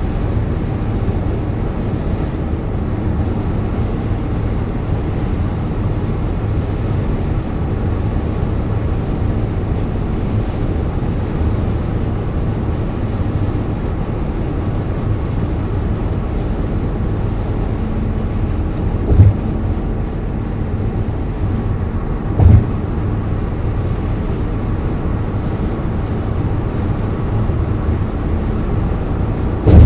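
Steady low rumble of a car's road and engine noise heard inside the cabin at highway speed. Two short thumps come about two-thirds of the way through, three seconds apart, and another right at the end.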